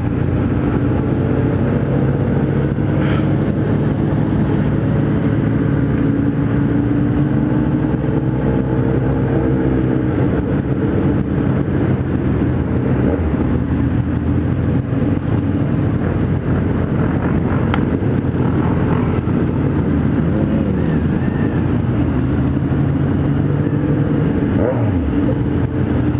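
Kawasaki Z1000's inline-four engine running steadily at low speed amid a large pack of motorcycles, with the other bikes' engines mixed in. One engine revs up briefly near the end.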